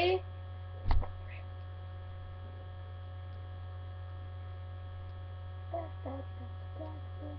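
Steady low electrical mains hum in the recording, with one sharp knock about a second in and faint talk near the end.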